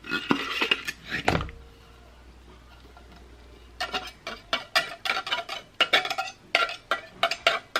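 A metal table knife scraping and clinking again and again inside an opened tin can, working out the last of the cranberry sauce. Before that come a short clatter of handling and a thump in the first second and a half.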